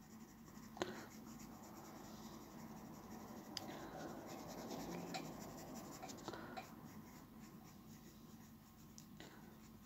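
Graphite pencil scratching faintly on paper while shading the nostrils of a drawn nose. It is a little stronger in the middle and thins out towards the end, with a light tick about a second in.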